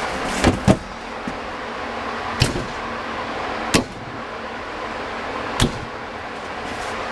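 A metal bedplate knocking and clunking against an engine block as it is pressed down and seated over the main studs: about five sharp clunks, two close together near the start and the rest a second or two apart, over a steady hiss.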